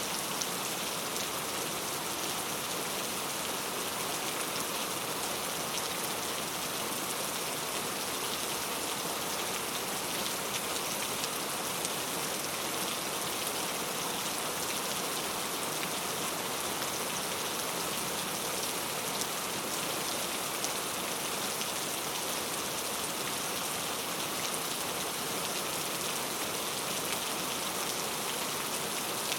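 Heavy rain falling steadily, a dense even hiss of drops on surfaces with fine crackle throughout.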